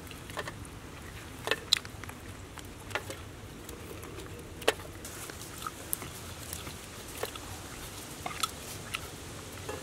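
Kitchen scissors snipping through cooked shrimp shell over a stainless steel plate: a series of short, crisp snips and clicks at irregular intervals, with the loudest a little under two seconds in and near the middle.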